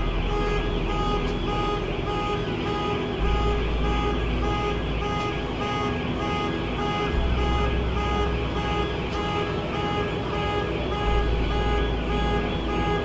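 Scania fire appliance's diesel engine running steadily at the scene, a steady hum of several even tones with a regular pulse. Low rumbling comes and goes every few seconds.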